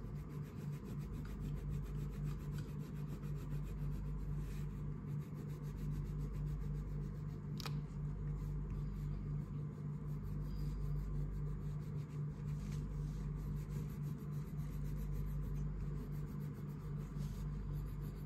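Crayon rubbing back and forth on paper as a picture is coloured in, a faint scratchy stroking over a steady low hum. One sharp tick about halfway through.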